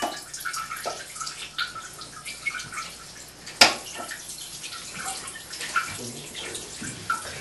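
Water running and splashing in a small bathroom, with scattered small clicks and one sharp knock about three and a half seconds in.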